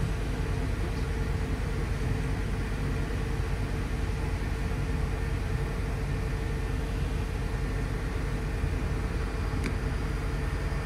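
Steady low rumble of a road vehicle in motion, with a constant hum over it.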